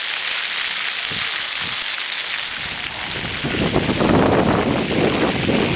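Fountain jets splashing, a steady hiss of falling water. From about three and a half seconds in, a louder, gusty rumble of wind buffeting the microphone joins it.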